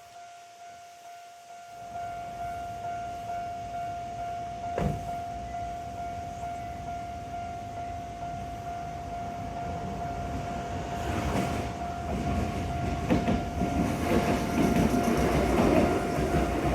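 Japanese level-crossing warning bell ringing steadily in a rapid, even clang of about two and a half strokes a second. From about eleven seconds in, a train's rumble rises over it and grows louder as the train runs through the crossing.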